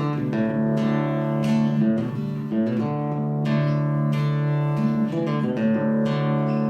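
Acoustic guitar playing a song's intro, chords struck every second or two and left to ring.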